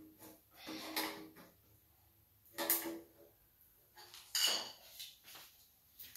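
Screwdriver prying at the lid of a metal paint tin: metal-on-metal clinks and scrapes, three louder ones about a second and a half apart, each with a short ring.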